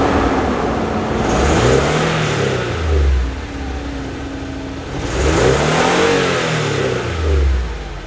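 1993 Toyota 4Runner engine idling and revved twice with the gas pedal, the pitch climbing and falling back each time. The throttle responds to the pedal now that a new rubber spacer has taken the slack out of the throttle cable.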